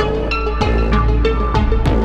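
Moog DFAM, Subharmonicon and Mother-32 semi-modular synthesizers playing an electronic jam: a steady pulse of percussive hits, about three a second, over a deep sustained bass and held pitched synth tones.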